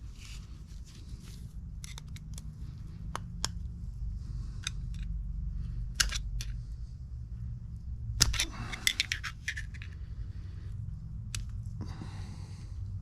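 Metal hand tools clicking and scraping against the pump housing while prying at a part stuck tight in the seal bore of a Case 1845 skid steer's pump, with a quick cluster of clicks and scrapes about eight seconds in. A steady low hum runs underneath.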